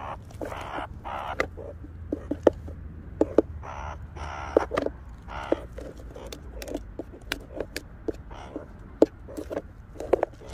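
Meerkat giving a string of short, raspy calls, about half a dozen, from inside an upturned plastic tub, mixed with sharp clicks and taps on the plastic.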